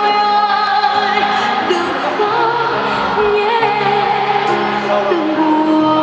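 A woman singing a Vietnamese pop ballad into a microphone over backing music, holding long notes with vibrato.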